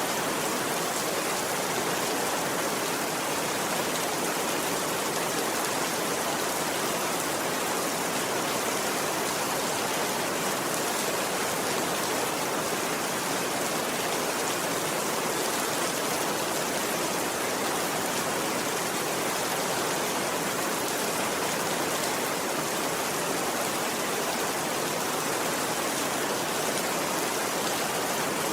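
Steady rain falling, a dense even hiss that stays the same throughout.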